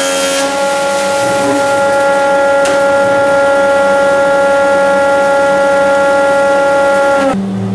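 Surface planer running with a steady high whine from its spinning cutter block over a hiss of cutting noise as the timber is planed flat; it stops abruptly near the end.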